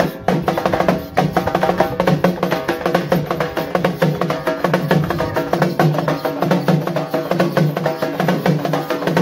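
Fast folk percussion music: dense, rapid drum strokes with a sharp wood-block-like click, over a steady low pitched tone.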